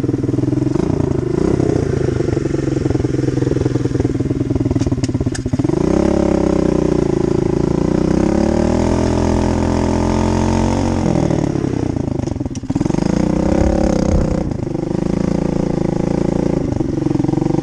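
Dirt bike engine running, revved up about six seconds in and held, eased back near eleven seconds, then revved again.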